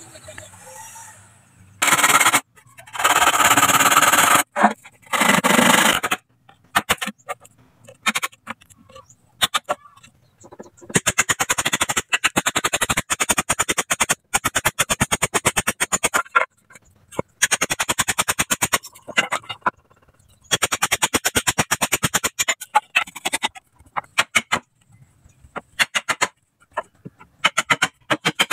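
Bamboo being worked with hand tools. A few loud rasping strokes come near the start. Then come long runs of rapid, sharp strikes as a machete-like blade chops into the bamboo.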